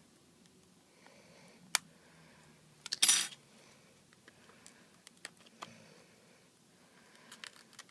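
Scattered sharp clicks of a metal pry bar and tools against an iPad 2's glass and frame, with a short scrape about three seconds in, as the glass is being pried up from its corner.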